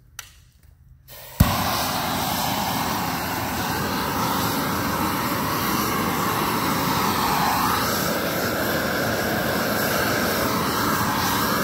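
Propane shrink-wrap heat gun with a wire safety guard lighting about a second and a half in, with a sharp pop. Its flame then burns with a steady, loud roar.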